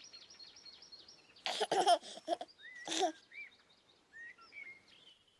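Birds chirping and whistling, a quick run of high chirps at first and then short rising-and-falling whistles, with a baby giggling about one and a half seconds in and again near three seconds.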